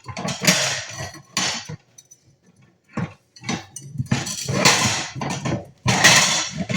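Ceramic plates and dishes clattering and clinking, handled and stacked while a dishwasher is unloaded, in two busy runs of knocks with a brief lull about two seconds in.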